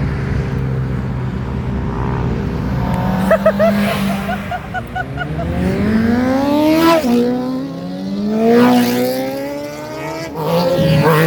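Car engine accelerating hard past, its revs climbing steeply then dropping at an upshift, then climbing again through the next gear.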